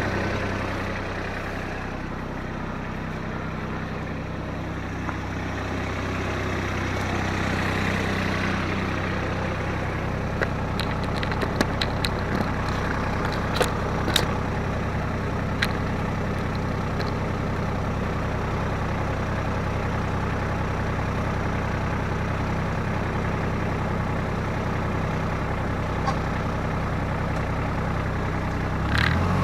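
Diesel tractor engine, the Kubota L3750, idling steadily, with a few light metallic clicks and clanks partway through. The engine gets louder right at the end.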